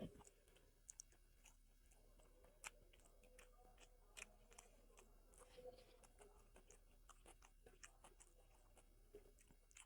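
Faint chewing of food: irregular small clicks and crunches from a mouthful being eaten.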